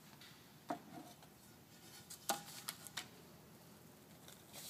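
Metal lid of an old tin can being worked off and set down, two sharp metallic clanks with a short ring about a second and two seconds in, then a few light clicks as the shotgun-starter cartridges packed inside are handled.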